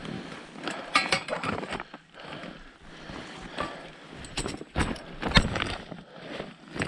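Footsteps crunching on snow-covered lake ice, an irregular series of short crunches, with carried gear rattling lightly.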